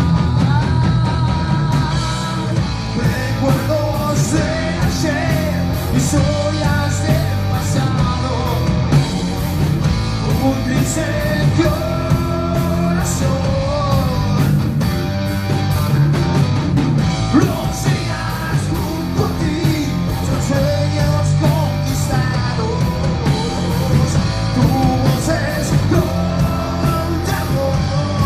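Rock band playing a song: a singer over electric guitar, bass and drums, with steady drum and cymbal strikes throughout.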